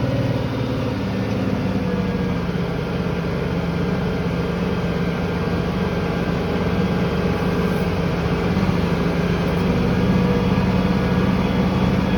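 Tractor engine running steadily under load while pulling a field cultivator, heard from inside the cab, with a steady low hum and a slight change in pitch about a second in.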